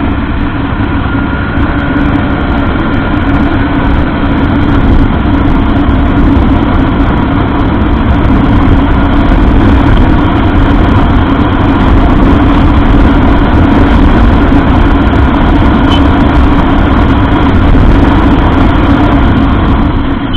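Honda Livo's 110 cc single-cylinder engine running steadily in third gear on the move, with a heavy low rumble of wind on the camera microphone.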